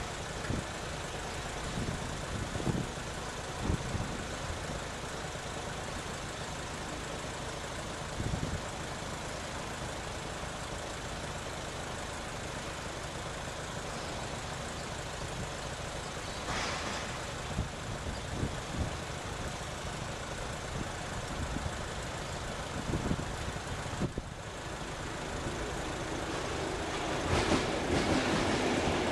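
Steady background noise with a few scattered low knocks. Over the last few seconds a train hauled by Class 73 locomotives grows louder as it approaches.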